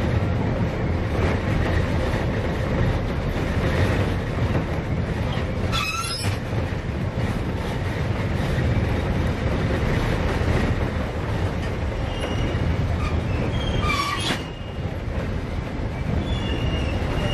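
Narrow-gauge train running with a steady rumble of wheels on the rails. High wheel squeals cut in briefly about six seconds in and again about fourteen seconds in, with fainter squeals near the end.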